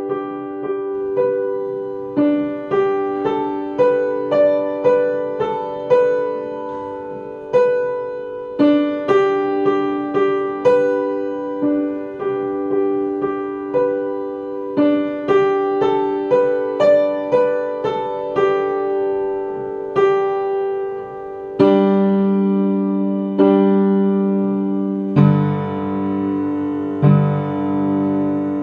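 Piano playing a simple melody over an accompaniment, each note struck and dying away. Deeper, longer-held notes join about three-quarters of the way through.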